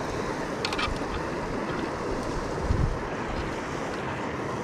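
Steady rush of water from a rocky waterfall cascade, with wind on the microphone. A few faint clicks about a second in and a low thump just past halfway.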